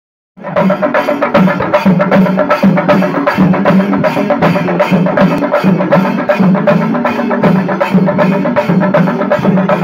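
A chenda drum ensemble playing a fast, even beat in unison, many drums struck with sticks together; the drumming starts about half a second in.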